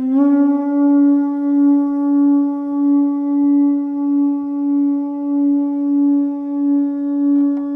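A single long held musical note, steady in pitch with strong overtones, wavering slowly in loudness a little under twice a second.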